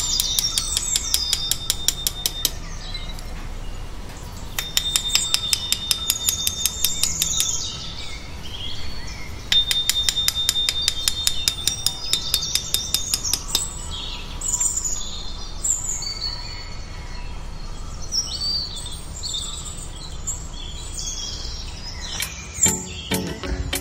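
Birdsong: a bird's rapid trilled phrase repeated three times, a few seconds each, then assorted shorter chirps and calls from other birds.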